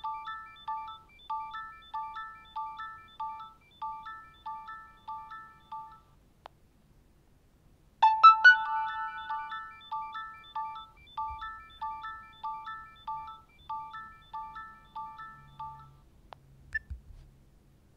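Nokia 6600's built-in 'Alarm' tone playing twice. Each time it opens with a bright chime, then runs into a quick string of short beeps alternating between two pitches, about three a second, that fade away over some six seconds.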